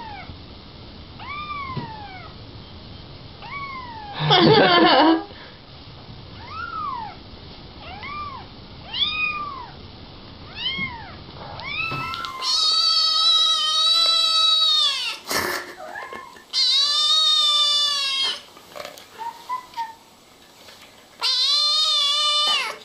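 Kittens meowing. First a small kitten gives short, high mews about once a second, broken by one loud harsh burst about four seconds in. Then another kitten gives three long, loud, drawn-out meows of about two seconds each, with a sharp knock between the first two.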